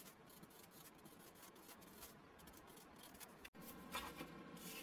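Near silence with the faint scratching of a felt-tip marker writing on paper. It breaks off abruptly about three and a half seconds in, and faint handling noises follow.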